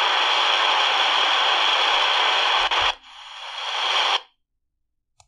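Static hiss from the C.Crane CC Skywave 2's speaker on the airband as the squelch opens, steady and loud for about three seconds, no voice in it. A second, quieter burst of hiss follows, swells and cuts off suddenly.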